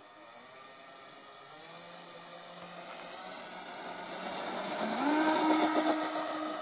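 Electric motors and propellers of a six-motor Graupner Gigant RC model plane on a 3-cell LiPo, throttled up for its takeoff run. The whine builds steadily, rises in pitch about five seconds in and is loudest near the end.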